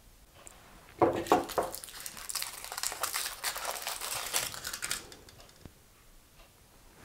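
Thin aluminium foil crinkling as it is peeled off a filled chocolate egg, from about a second in until about five seconds in, followed by quieter handling with a single click.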